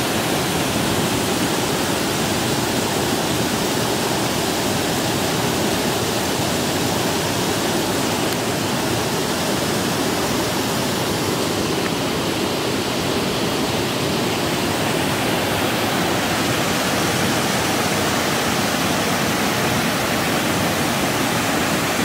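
Water pouring over a low river weir: a steady, even rush of falling water.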